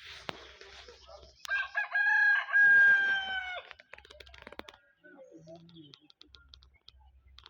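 A rooster crowing once, starting about a second and a half in and lasting about two seconds, with its last note held and dropping slightly at the end. Faint scattered clicks and knocks can be heard around it.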